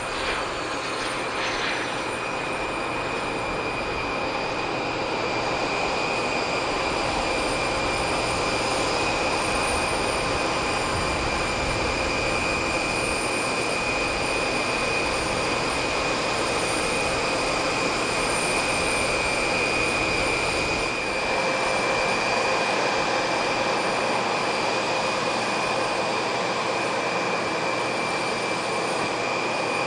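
Steady whine and rush of jet engines, a high tone holding level throughout, with a brief dip about 21 seconds in.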